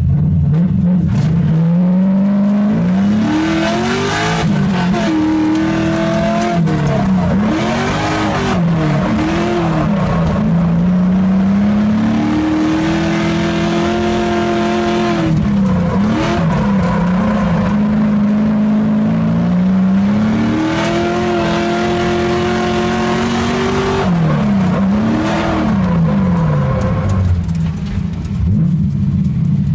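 A car's engine, heard from inside the cabin, revving up and falling back again and again as the car is driven hard through drifts, its pitch now and then held high for a few seconds, with tyre noise during the slides.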